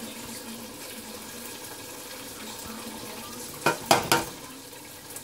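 Steady low sizzle of sausage, tomatoes and cream cheese cooking in a skillet on medium heat, with three sharp knocks in quick succession a little over three and a half seconds in as a jar of cheese dip is shaken out over the pan.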